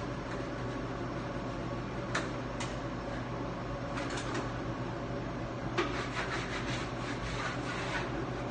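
Steady hum of kitchen ventilation, with light clicks and knocks of the baker handling things at the oven. A few clicks come about two seconds in and again around four, then a sharper knock, followed by a run of lighter clatter.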